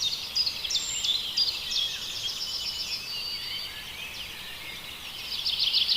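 High-pitched chirps and rapid trills from a small animal. They are quieter than the loud calls on either side, and they grow louder again in the last second.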